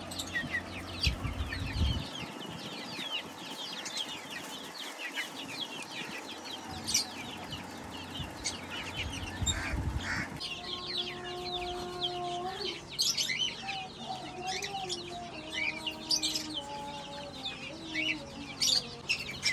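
Aseel chicks peeping in quick, high chirps while hens cluck. About halfway in, a drawn-out tone that steps up and down in pitch joins them.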